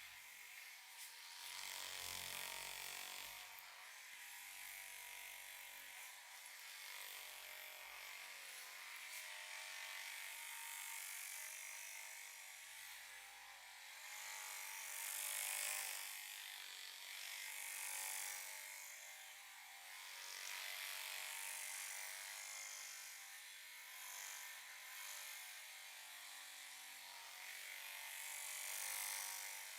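Hands rubbing and kneading a scalp and hair close to the microphone, a rustling friction sound that swells and fades every few seconds.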